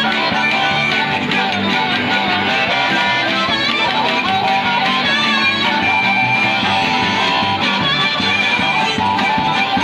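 Acoustic string band playing a lively tune: upright bass, acoustic guitar, banjo, harmonica and a small drum kit, with a fiddle joining in.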